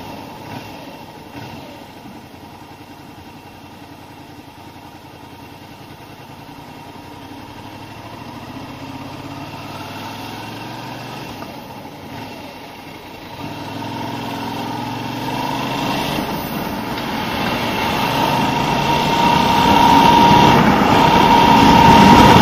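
Suzuki SV650's V-twin engine running at low revs as the motorcycle rolls slowly, then rising in pitch as it accelerates from about halfway, getting steadily louder toward the end with rushing wind noise.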